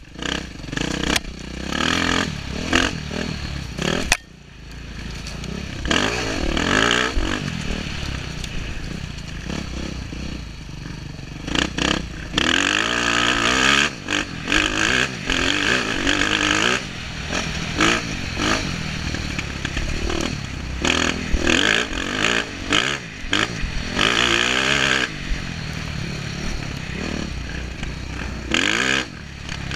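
Dirt bike engine revving up and down again and again as it is ridden over rough trail, with clatter and knocks from the bumps.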